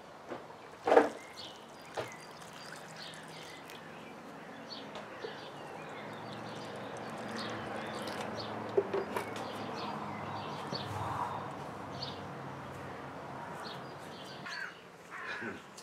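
Small birds chirping, short calls scattered throughout. A sharp knock about a second in is the loudest sound, and a low hum swells and fades away through the middle.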